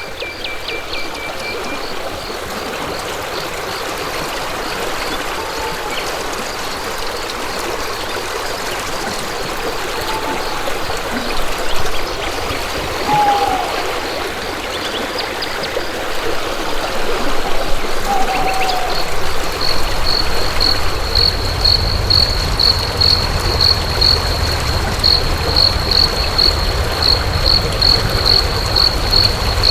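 Hill-stream water flowing steadily. A few short, falling bird calls come through, and an insect's pulsed chirp, about two pulses a second, grows loud from about two-thirds of the way through.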